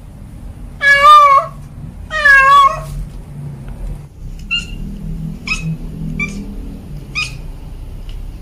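Cat meowing: two long, loud meows with a wavering pitch about a second apart, then four short high chirps spread over the next few seconds.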